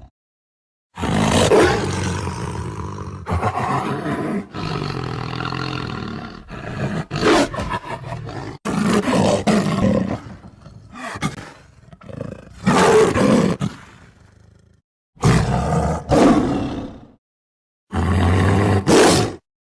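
Tiger roars and growls, a string of separate loud calls that start and cut off abruptly with short silences between them, as edited sound-effect clips.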